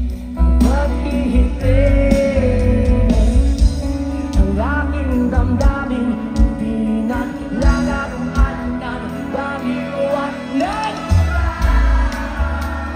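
A live rock band playing a song: a male singer's voice over electric guitars, bass, drums and keyboard, with regular drum hits throughout.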